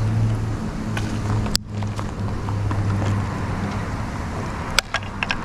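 Wood bonfire burning, giving a few sharp crackles and pops over a steady low rumble.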